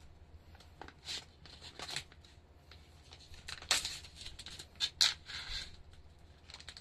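A plastic food package being cut and torn open with a knife and handled: scattered short crinkles and scrapes, the loudest about four and five seconds in.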